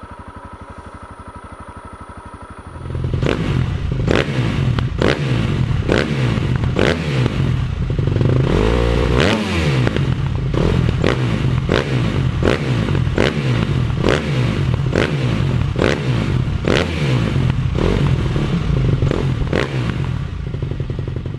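Honda CRF250L's single-cylinder engine idling steadily for about three seconds. Then a much louder sound with a regular beat of sharp hits takes over to the end.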